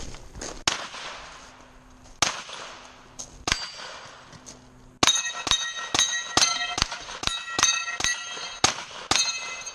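Gunshots on a shooting stage, with steel targets ringing as they are hit: three spaced shots in the first half, then a fast string of about a dozen hits, roughly two a second, each steel plate ringing at its own pitch.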